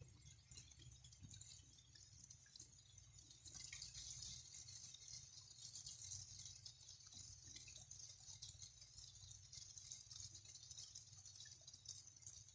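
Faint light rain: a soft hiss of fine pattering drops that gets a little stronger about three and a half seconds in, over a low steady hum.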